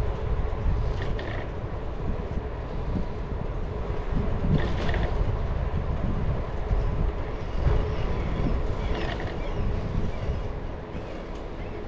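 Steady rumble of a bicycle ride: wind on the microphone and tyres rolling on the path, with a few short rattles.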